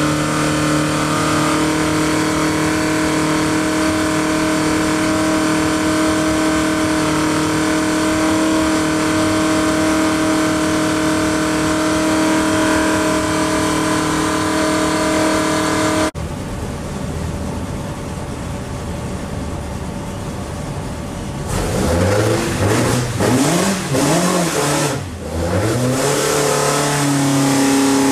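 Ford Crossflow 1.8-litre inline-four running on an engine dyno, held at steady revs for about sixteen seconds. It then cuts abruptly to a duller rushing noise without the engine note. About three-quarters of the way through, the engine is revved up and down several times, then settles to a steady note near the end.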